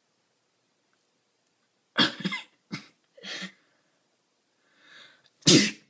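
A person coughing from a twisted tissue tickling inside the nose: a run of coughs about two seconds in, a faint catch of breath, then one louder, explosive burst near the end.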